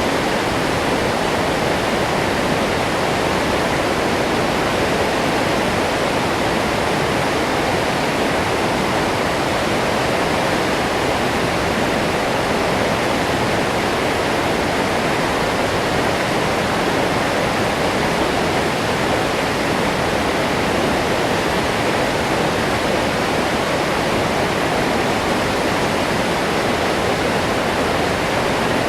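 Waterfall pouring steadily into its pool: a constant, loud rush of falling water.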